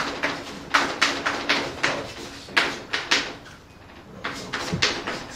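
Chalk tapping and scraping on a blackboard as a formula is written: quick runs of short, sharp strokes with brief gaps, easing off a little after three seconds in and picking up again about a second later.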